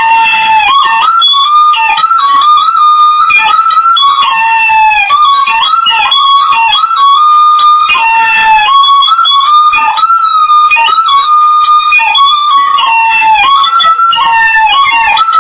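Hmong raj, a bamboo pipe, playing a continuous melody of held notes with frequent slides and bends between them.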